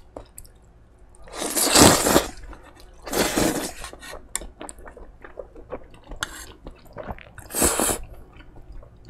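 Close-miked slurping of ramen noodles from spicy tteokbokki: three long slurps, the loudest about two seconds in, with small wet clicks and chewing between them.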